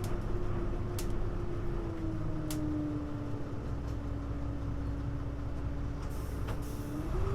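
Hino U-HU2MLAA city bus heard from inside while running: a low drivetrain rumble with a steady whine that sinks slowly in pitch, then climbs again near the end. A few sharp clicks or rattles come in the first few seconds.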